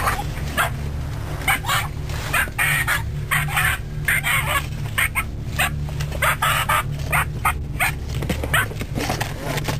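A frightened stray dog barking and yelping over and over while it is handled into a carrier.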